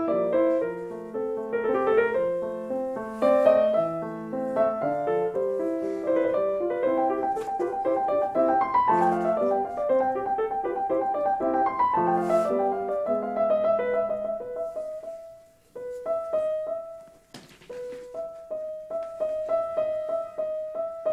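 Background piano music: busy runs of notes, giving way after two short breaks in the second half to slower, sparser single notes.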